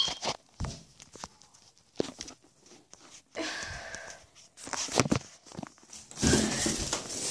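The recording device is handled close to its microphone: scattered knocks and taps, then a louder rubbing noise about six seconds in as the lens is covered.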